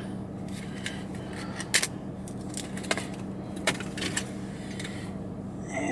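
A few light clicks and rattles of small packaged items being handled, over a steady low hum.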